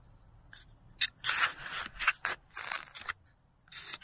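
Handling noise close to the microphone: a quick run of irregular scrapes and rustles from about a second in, a short pause, then more near the end, as hands fumble with the camera to switch it off.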